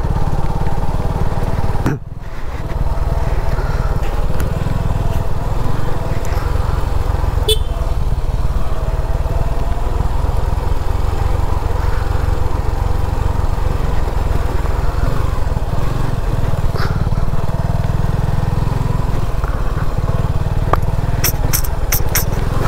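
Suzuki V-Strom SX 250's single-cylinder engine running as the motorcycle is ridden on a rough off-road track, with a heavy low rumble under it. The sound drops out briefly about two seconds in, and a few sharp clicks come near the end.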